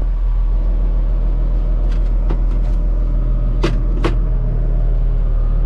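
Tractor's diesel engine running steadily, heard from inside the cab. A few light clicks, then two sharp clicks about three and a half and four seconds in as cab controls are worked.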